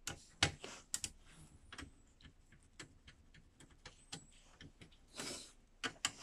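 Irregular clicks and small knocks of a screwdriver, screws and the metal and plastic parts of a Mercedes-Benz W213 wide-screen cockpit display being handled during disassembly, with a short scrape or rustle about five seconds in.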